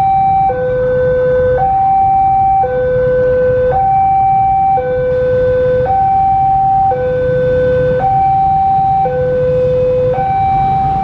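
Railway level-crossing warning alarm sounding its two-tone signal, a higher and a lower tone alternating about once a second each, which warns that a train is approaching the crossing.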